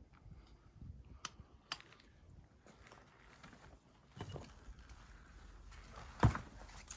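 Footsteps at an irregular pace, with scattered knocks and clicks and a louder thump about six seconds in.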